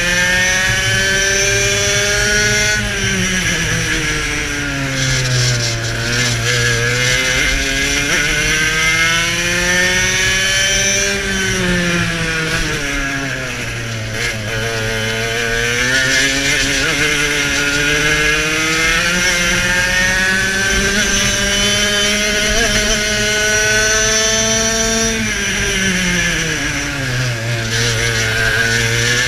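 TKM 100cc two-stroke kart engine at racing speed. Its pitch climbs steadily on the straights and drops sharply three times as the kart brakes into corners, then rises again as it accelerates out.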